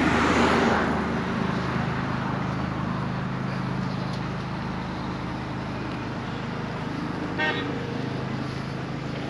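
Roadside traffic sound: a louder rush of vehicle noise in the first second, over a steady low engine hum, and a short vehicle horn toot about seven and a half seconds in.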